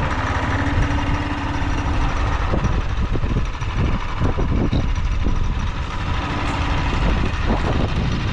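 Engine of a homemade off-road vehicle running, a steady low hum for about the first two seconds, then rougher and uneven.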